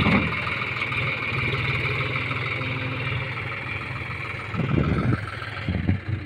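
Diesel tractor engine running steadily, with a few louder low bursts near the end.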